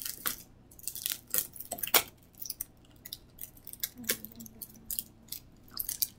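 Plastic packaging crinkling and crackling in the hands as laminated photo cards are worked out of their clear plastic container: an irregular run of short sharp crackles.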